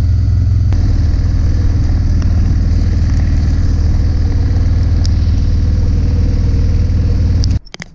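Harley-Davidson CVO ST's V-twin engine running steadily at an even speed. The sound cuts off abruptly near the end.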